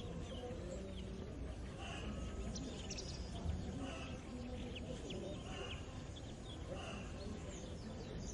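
Rural morning ambience: small birds chirping and calling repeatedly over a steady low background rumble, with faint scattered animal sounds lower down.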